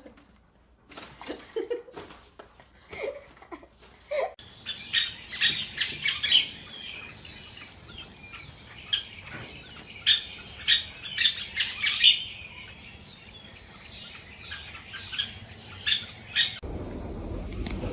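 Birds chirping in many short calls over a steady high-pitched insect-like drone, which starts abruptly about four seconds in and cuts off shortly before the end. A few scattered faint sounds come before it, and a low rumbling noise follows it.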